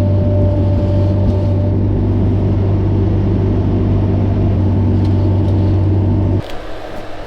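Bobcat skid steer engine running steadily under load, a deep even drone heard close up, which cuts off abruptly about six seconds in.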